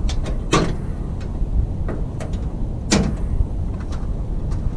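The steel hood of a 1981 Jeep CJ7 being raised and held open, giving two sharp knocks about half a second and three seconds in and a few lighter clicks, over a steady low rumble.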